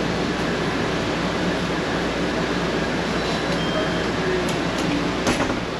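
Steady hum and rushing air of a bus's air-conditioning running, with a couple of faint clicks near the end.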